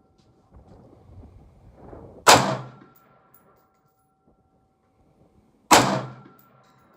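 Two rifle shots from a Daniel Defense Mk18 AR pistol in 5.56, about three and a half seconds apart, each followed by a steel target ringing for a few seconds. Wind rumbles on the microphone before the first shot.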